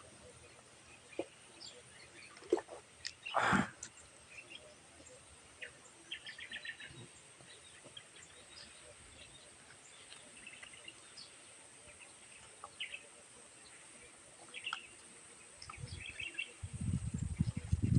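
Quiet eating sounds: scattered mouth clicks and small crunches, with one louder sudden sound a few seconds in and faint high chirps here and there. Near the end, louder close-up chewing begins.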